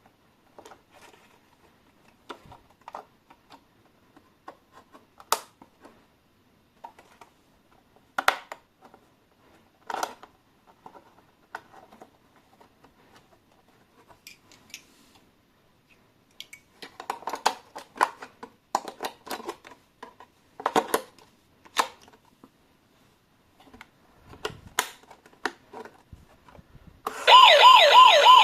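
Scattered clicks, taps and rustles of handling an RC toy and its packaging, then about a second before the end a toy electronic police siren switches on, loud and warbling.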